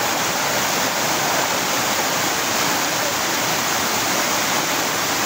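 Small forest waterfall pouring over rocks into a stream: a steady, even rush of falling water.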